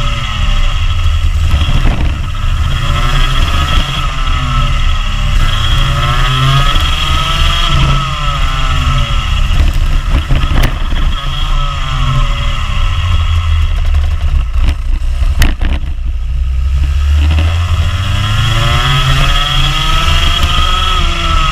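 Rotax Junior Max kart's 125cc two-stroke single-cylinder engine at race pace, heard onboard, its revs climbing and dropping again every couple of seconds through the corners. A few sharp knocks come past the middle.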